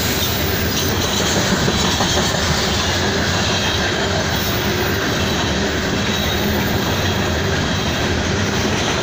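Loaded coal hopper cars of a CSX freight train rolling past, a steady loud noise of steel wheels running on the rails.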